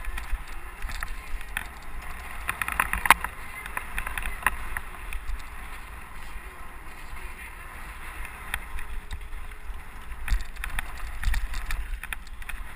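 A 29er mountain bike running fast down dirt singletrack: tyres on dirt and gravel with scattered rattles and knocks from the bike, over a steady low wind rumble on a helmet-mounted camera's microphone. A sharp knock about three seconds in is the loudest.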